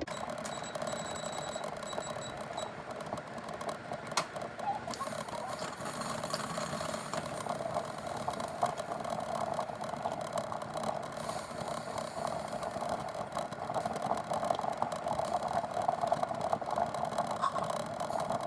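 Pots boiling on a stovetop, a steady bubbling. In the first few seconds, a run of short, high electronic beeps sounds over it.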